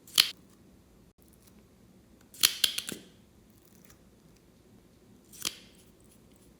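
Slime being squeezed and poked by hand, giving short crisp crackling pops: one near the start, a quick cluster of several about two and a half seconds in, and one more near the end.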